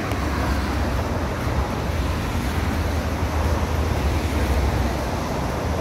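Wind buffeting the microphone in a steady low rumble, over the even hiss of rough surf breaking on the beach.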